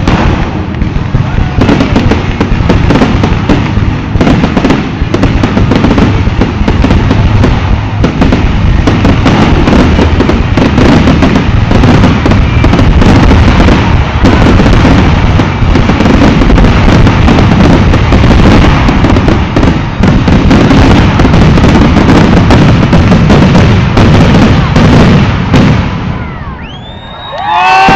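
Dense, continuous barrage of fireworks: rapid overlapping bangs and crackling, loud throughout, dying away shortly before the end.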